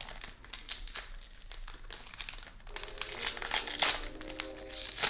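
Foil Pokémon card booster pack wrapper crinkling as it is handled and opened, with a louder crackle a little under four seconds in.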